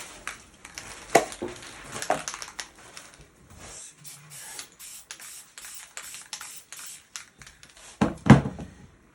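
Aerosol spray paint can hissing in short, repeated spurts, with a few sharp knocks in between, the loudest near the end.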